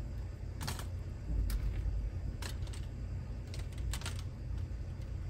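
A handful of sharp, irregular clicks or taps over a steady low rumble.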